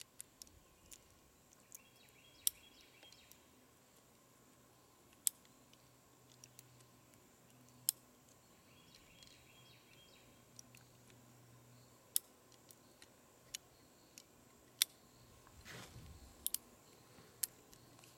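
Heritage Arms .22 LR single-action revolver being loaded by hand with the hammer at its first (loading) click: faint, sharp metallic clicks every second or few as the cylinder is turned chamber by chamber and cartridges are pushed in, with a couple of brief soft rattles.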